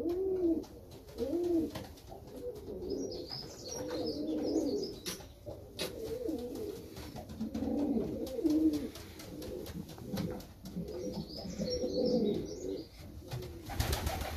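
Buchón rafeño pouter pigeons cooing over and over, each coo a low arched call, with clusters of high chirping now and then and a brief rush of noise near the end.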